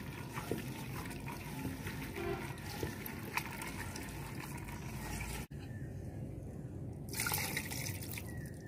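Wet squelching of a hand mixing raw meat, lentils, oil and spices in a metal pot, with small clicks against the pot's side. About seven seconds in comes a brief louder rush of liquid.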